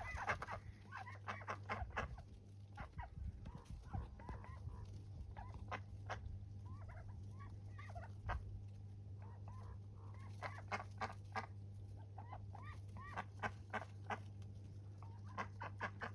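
Indian runner ducks chattering: short, quick quacks and murmurs come in scattered clusters, busiest near the start and again in the second half.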